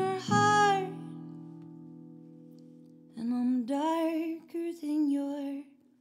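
Acoustic guitar chord ringing out and slowly fading under a short held sung note. About three seconds in, a woman starts singing again over the guitar, with gliding phrases.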